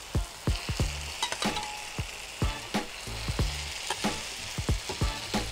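Raw chicken pieces sizzling as they go into a hot pan of fried onion, tomato and ginger-garlic paste, with a spatula clicking and scraping against the pan as it is stirred.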